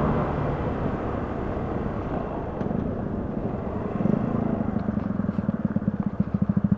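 125cc motorcycle engine slowing as the bike pulls in, with wind noise on the microphone, then settling into an even, fast putter at idle over the last few seconds.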